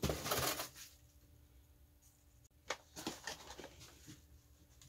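A brief rustle of a cardboard box being handled, then a few sharp clicks and knocks as the plastic latches of a hard chainsaw carrying case are snapped open and the lid is lifted.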